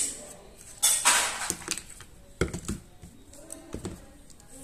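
A screwdriver at the grip screw of a Jericho 941 FB pistol, then the loosened grip panel and small metal parts being handled and set down: a sharp click at the start, a scraping clatter about a second in, and a few dull knocks later.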